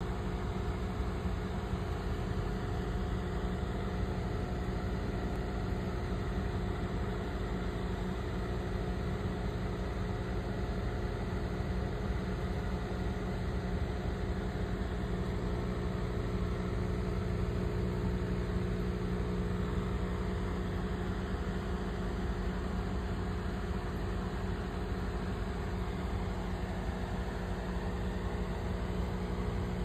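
Steady hum of an aquarium air pump, with a constant low drone and the hiss of bubbles from the air stone.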